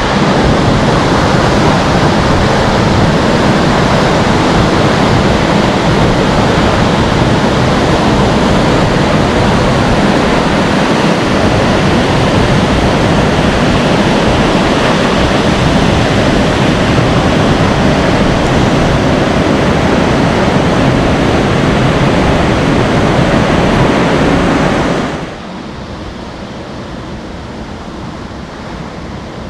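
Waterfall's steady rushing roar of falling water. About 25 seconds in it drops abruptly to a much quieter but still steady rush.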